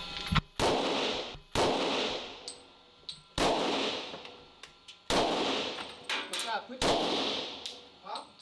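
Five gunshots fired one at a time, about one to two seconds apart, each ringing out in the echo of an indoor shooting range.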